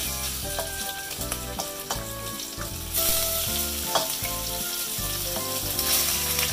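Raw chicken pieces sizzling as they are laid into hot oil in an enamelled cast-iron pot to be pan-fried, the sizzle growing louder about three seconds in as more pieces go in, with an occasional light click of the spatula.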